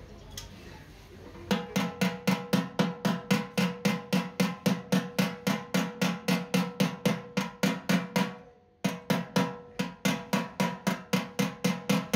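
Small hammer tapping along the welded seam of a steel motorcycle fuel tank, about four ringing metal strikes a second. The strikes start about a second and a half in and pause briefly about eight seconds in.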